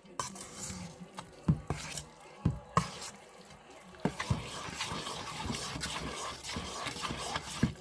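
A spoon stirring moist, broth-soaked bread-cube stuffing in a stainless steel mixing bowl: a wet, squishy churning, with the spoon knocking against the bowl a few times.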